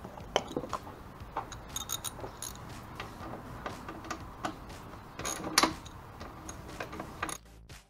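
Hand tools clinking as tools are taken from a toolbox and a socket ratchet is worked on a motorcycle battery terminal bolt: irregular clicks and a few ringing metal taps. Music starts near the end.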